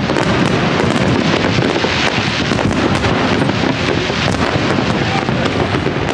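Fireworks display going off: a dense run of bangs and crackling with no pause.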